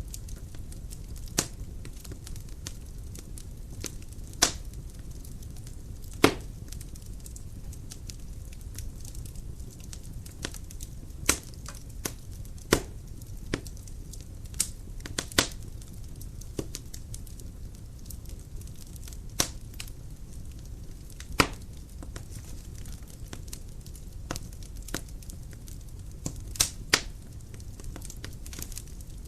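Dry firewood burning in a fireplace: a steady low rush of flame with irregular sharp crackles and pops, about a dozen of them loud, spaced a second or several apart.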